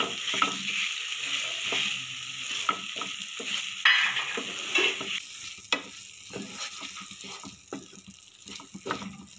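Tomato and masala paste sizzling in hot oil in a non-stick frying pan while a spatula stirs it, with repeated scrapes and taps of the spatula against the pan. The sizzle is strongest in the first half and dies down toward the end.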